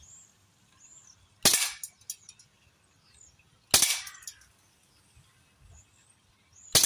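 Huntsman FAL CO2 air rifle, 4.5 mm, firing three single shots, each a sharp short crack with a brief tail. The shots come about two to three seconds apart, and a few faint ticks follow the first two.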